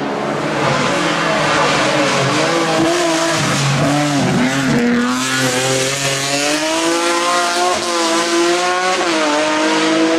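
Rally car engine revving hard through a tight bend: the pitch drops and wobbles about four to five seconds in as it brakes and downshifts, then climbs in steps through the upshifts as it accelerates away.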